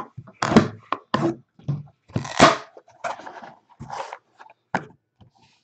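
Hands breaking the seal on a box of National Treasures football cards and sliding it open: a string of short rips, scrapes and knocks of cardboard, the loudest about two and a half seconds in.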